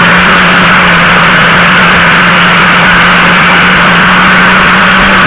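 Electric grinder running and grinding down the metal top end of a gas hood strut: a loud, steady grinding rush over a constant motor hum.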